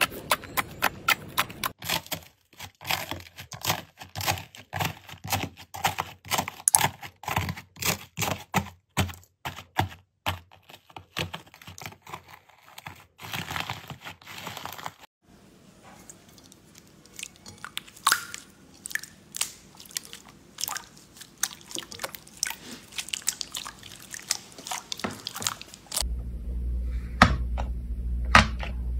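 Slime being squeezed and pressed by hand, giving rapid crackling and popping clicks. The clicks thin out to scattered pops about halfway through, and a low steady hum comes in under them near the end.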